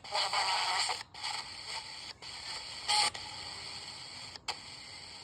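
Built-in radio of a John Deere Ground Force toy tractor playing through its small speaker. The sound breaks off in short gaps every second or so, as if stations are being changed.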